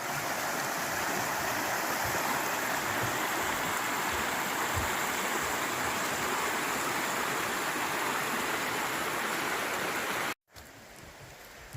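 Rushing creek water, a steady, even flow. It cuts off abruptly about ten seconds in, giving way to a much quieter outdoor hiss.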